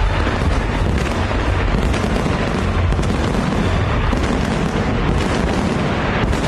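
Fireworks barrage: a dense, unbroken rumble of booming shell bursts and crackle from many shells and ground effects firing at once, loud and steady throughout.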